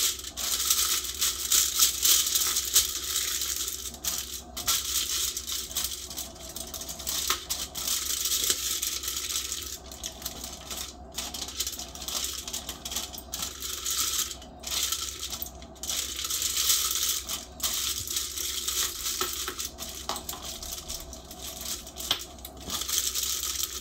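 Aluminium foil crinkling as it is folded and crimped tight by hand around a whole fish, with a few brief pauses.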